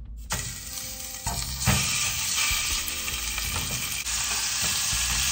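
Bone-in short ribs sizzling as they are laid into hot oil in a stainless steel pot to sear on high heat. The sizzle starts about a third of a second in and grows louder about a second and a half in.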